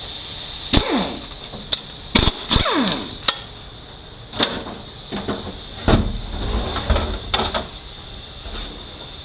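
Metal tools and bolts knocking and clinking against the case of a Ford 4R75W automatic transmission as it is unbolted: a string of sharp metallic knocks, several ringing briefly and falling in pitch, with a short low rumble about six seconds in.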